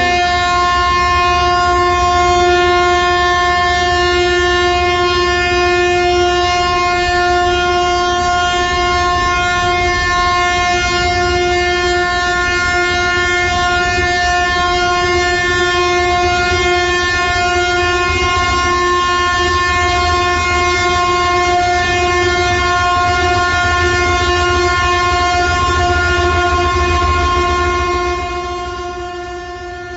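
One long, steady horn blast over a low rumble, sounded in mourning for earthquake victims; it dies away near the end.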